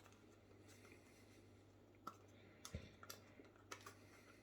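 Near silence broken by a few faint clicks and taps as a small packaged snack cube is turned over in the hands, someone feeling for a way to open it.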